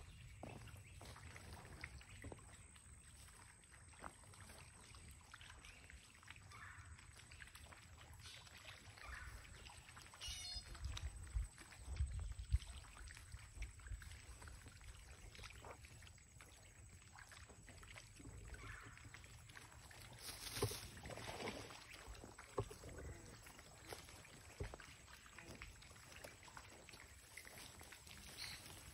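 Faint sounds of walking a grassy trail: feet swishing and rustling through tall grass, with low wind rumble on the phone's microphone. A short run of high chirps comes about ten seconds in.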